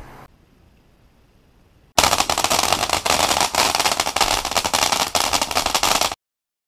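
Ground fountain firework going off: a dense run of rapid crackling pops over a spray of sparks. It starts abruptly about two seconds in and cuts off suddenly about four seconds later.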